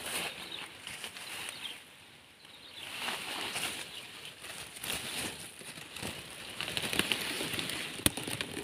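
Leafy vines and plant stems rustling as a hand pushes them aside, in irregular bursts with a brief lull about two seconds in and a sharp click near the end.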